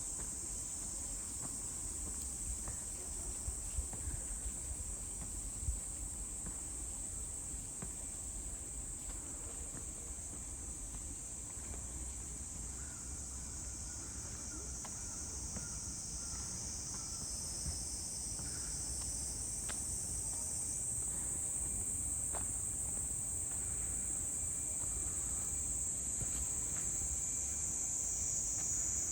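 A steady, high-pitched chorus of summer insects that never lets up, shifting slightly in pitch about two-thirds of the way through, over a low rumble.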